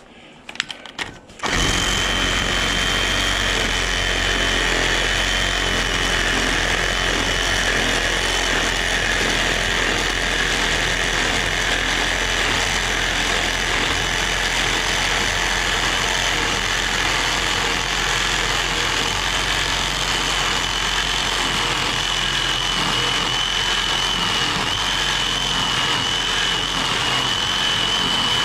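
Cordless reciprocating saw cutting through the copper-and-aluminum coils of an AC condenser unit. It starts abruptly about a second and a half in and then runs steadily as one long cut, with a high, steady whine over the cutting noise.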